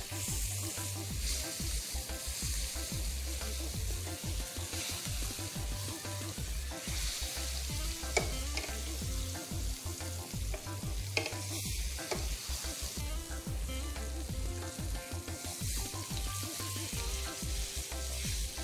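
Marinated pork steak sizzling steadily in a little oil on a ridged grill pan, with two sharp clicks about eight and eleven seconds in.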